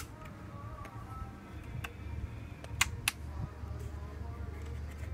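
Two sharp plastic clicks a fraction of a second apart, near the middle, as a Dell Inspiron laptop's battery release latch is worked, over a low steady hum.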